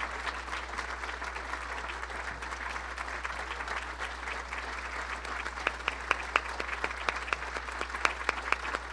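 Audience applauding steadily, with a few louder, sharper claps standing out close by in the second half.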